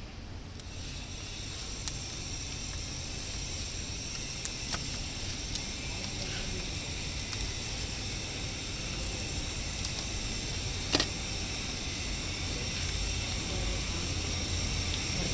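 Protective liner of 3M 467MP double-sided adhesive tape being picked up and peeled off a metal plate, giving a few short sharp clicks and crackles, the sharpest about eleven seconds in, over a steady hiss.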